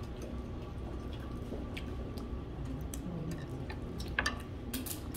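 Table noise during a meal: scattered light clicks and taps, most of them about four to five seconds in, over a steady low room hum.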